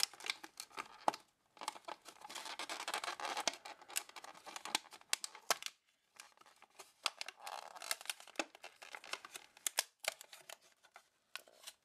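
Thin clear plastic clamshell food pack being opened by hand: the tape seal peeled off and the plastic lid crinkling and clicking in irregular crackles, with a short pause about six seconds in.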